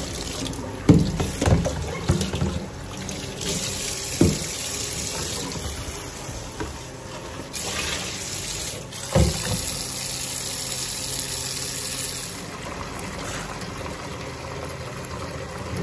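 Kitchen tap running into and over a plastic basin in a stainless steel sink, as the basin is rinsed. A few knocks and bumps from the basin being handled come in the first four seconds, with one more strong knock about nine seconds in.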